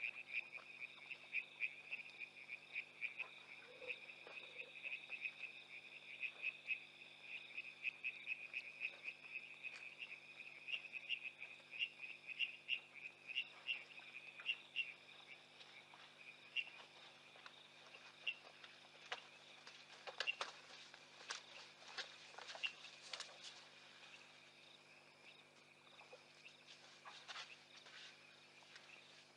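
Faint night chorus of frogs and insects: a rapid, pulsing chirp at one pitch that thins out about halfway through, followed by a scatter of sharp clicks.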